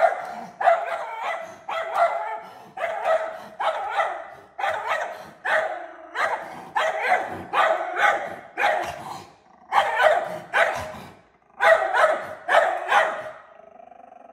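Schnauzer barking over and over, about two sharp barks a second, breaking off briefly twice in the second half. It is alarm barking at a black bear standing on the other side of a glass door.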